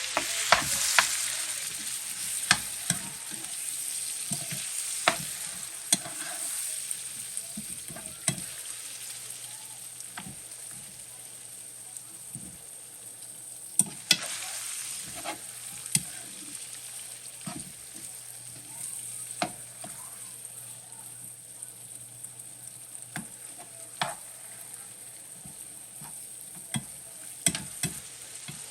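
Sardines with onions, sweet peppers and tomato sizzling in a frying pan while a utensil stirs them, with frequent sharp clicks and scrapes against the pan. The sizzle swells suddenly about halfway through.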